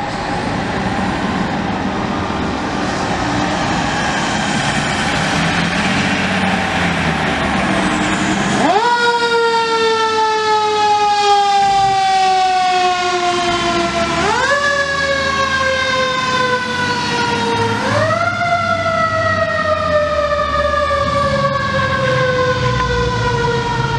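Seagrave fire engine rumbling past, then its siren starts about nine seconds in: each time it rises quickly in pitch and then slowly falls, three times in all.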